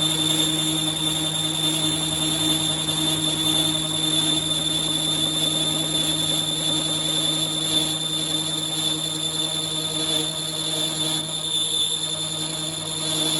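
A workshop machine or power tool running steadily, a constant hum with a high whine above it.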